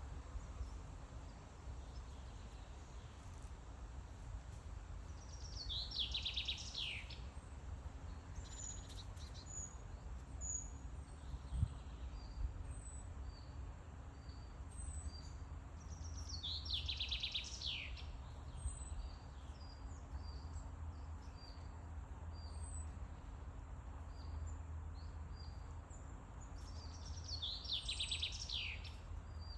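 Forest birdsong: one songbird repeats a fast trilled phrase that falls in pitch, three times about eleven seconds apart, while other birds give short high chirps. A steady low rumble runs underneath.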